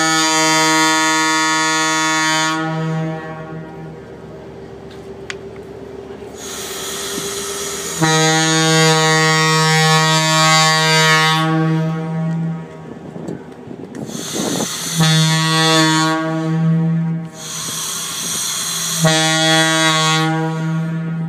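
Ship's horn sounding four long blasts of one steady deep pitch, each a few seconds long, with a lower steady noise continuing between them.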